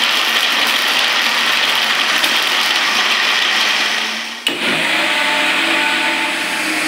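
Electric mixer grinder (mixie) running at speed, wet-grinding fresh coconut pieces with green chilli, ginger and water into chutney. About four and a half seconds in, the sound changes abruptly and settles into a steadier motor whine with a clear pitch.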